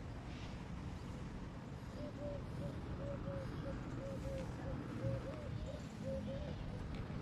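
A bird calling a run of about ten short, evenly spaced notes, from about two seconds in until near the end, over a low steady rumble.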